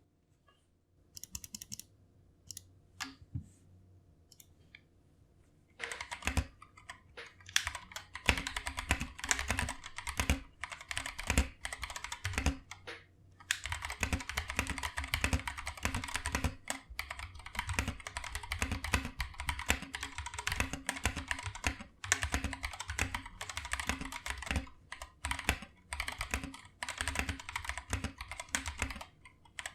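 Mechanical keyboard being typed on, with deep 'thoccy' keystrokes: a few separate key presses at first, then fast continuous typing from about six seconds in, with one brief pause.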